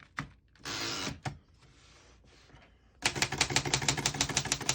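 1924 Remington Portable typewriter: a click and a short rasp of the mechanism about a second in, then from about three seconds in a quick run of typing, the typebars striking several times a second. The keys type evenly, none skipping or sticking.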